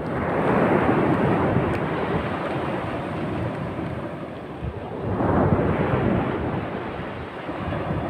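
Small ocean waves breaking and washing up a sandy beach, two surges about five seconds apart, each fading slowly, with wind rumbling on the microphone.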